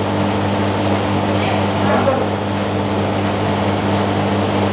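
Soft-serve ice cream machine running with a steady low hum as soft-serve is dispensed from its tap into a cone.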